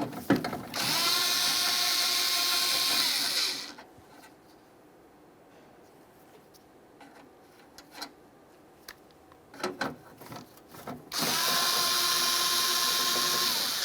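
Cordless power driver spinning 10mm mounting nuts off a door handle unit. There are two runs of about three seconds each, a steady motor whine that winds down at the end of each, with small clicks of handling between them.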